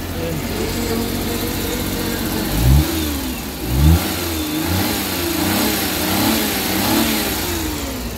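Freshly rebuilt Suzuki K6A three-cylinder engine running and revved by hand at the throttle linkage. There are two sharp rises in revs about two and a half and four seconds in, then a run of quicker, smaller revs that rise and fall. It settles back to an idle that holds steady.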